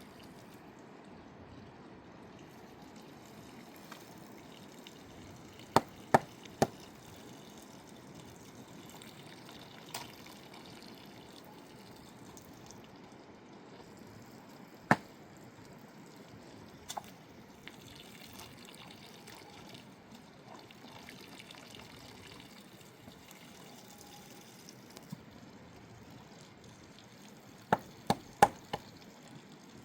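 Steady rush of flowing river water, with a few sharp knocks standing out above it: three in quick succession about six seconds in, a single one midway, and a quick cluster near the end.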